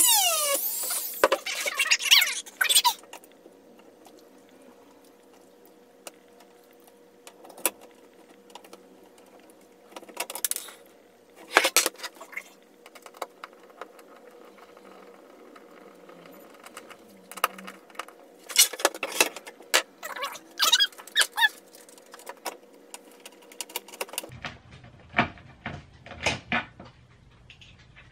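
A Dremel rotary tool whines at high speed, drilling a starter hole in the VITTSJÖ desk's steel frame, and stops in the first few seconds. Scattered squeaks, clicks and scrapes follow as a screw is worked by hand into the frame.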